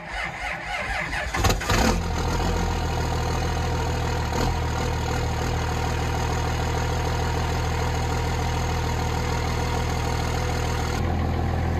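Dodge Ram's Cummins 5.9-litre inline-six turbo diesel cranking on a new starter, catching about a second and a half in, then settling straight into a steady idle. This is a cold start after sitting a week with the block heater plugged in, and it fires readily.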